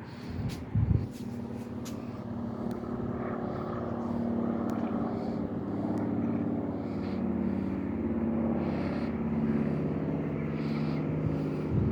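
Light propeller plane flying over, its engine drone slowly growing louder, with a short low thump about a second in.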